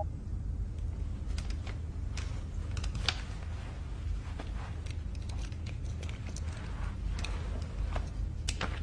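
Room tone with a steady low rumble, under scattered small clicks and rustles of handling that begin about a second in.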